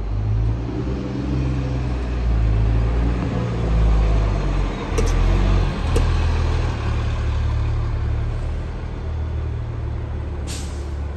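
Diesel transit bus pulling away and driving past close by, its engine a steady low rumble that is loudest about five seconds in. Near the end there is a short hiss of released air, typical of a bus's air brakes.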